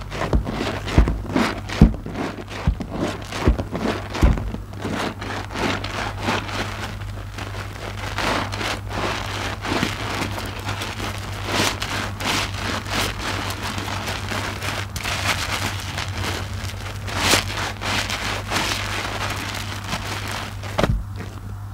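Wet squelching and crackling of soap foam as hands squeeze a soapy IKEA mesh loofah in a tub of foamy water. The first few seconds are sharp separate squelches; then it turns into a denser, steady crackle and fizz of popping bubbles, with a louder squish near the end.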